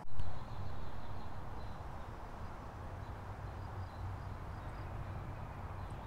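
Eastern chipmunk giving faint, repeated clucking alarm calls over a steady low rumble, after a brief loud bump right at the start.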